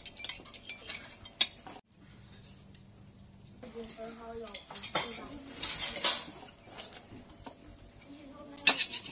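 Knives and forks clinking and scraping on ceramic plates as several children eat, with scattered sharp clinks and one louder clatter near the end.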